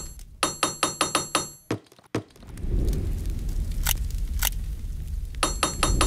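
Toy hammers tapping on large plastic building blocks: quick clinking taps with a ringing ping, about six a second. One run fills the first second and a half, two single taps come around the middle, and another run starts near the end.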